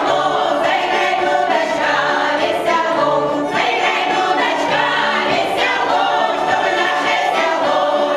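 A women's folk choir singing together, a steady loud ensemble of many voices.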